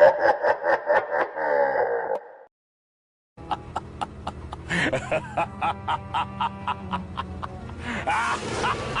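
Evil demon-laugh sound effect: a rapid staccato 'ha-ha-ha' laugh that trails off about two seconds in, then after a brief gap a second eerie laugh effect begins over a low drone and a steady tick about three times a second, with breathy vocal swells.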